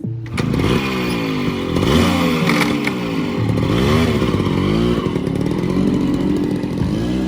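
Yamaha RX100 two-stroke single-cylinder engine being revved again and again, its pitch climbing and falling several times.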